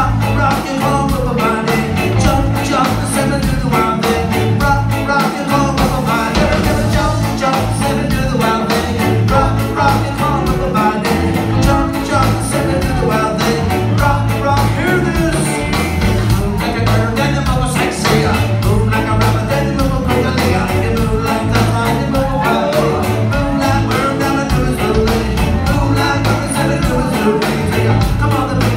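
Live rock band playing with a lead singer: drums, bass, electric guitars and keyboard, with a steady beat, heard from the audience in a club.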